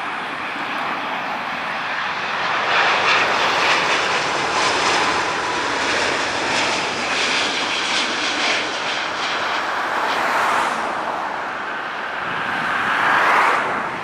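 Boeing 777-200ER's Rolls-Royce Trent 800 turbofans during landing, a steady jet rush with a faint whine. It grows louder a few seconds in and again just before the end, then drops off sharply.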